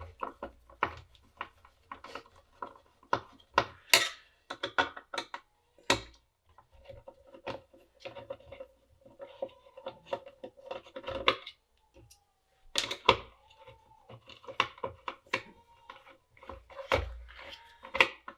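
Screwdriver working at a screw in the rework station's metal case, with many irregular clicks, scrapes and knocks of the tool and the unit being handled; the screw is not coming out, its thread likely stripped.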